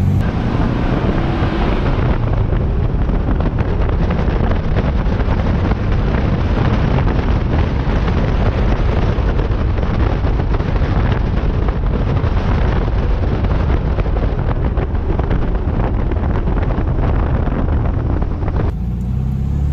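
Wind buffeting an outside-mounted microphone on a moving VW Beetle, mixed with road and tyre noise. It starts and stops abruptly. About a second before the end it gives way to the steady hum of the running car heard from the cabin.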